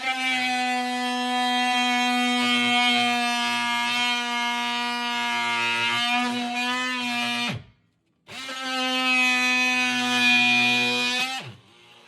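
DeWalt oscillating multi-tool cutting through the base of a cupboard, a steady loud buzz. It stops with a falling pitch about halfway through, starts again, and winds down once more near the end.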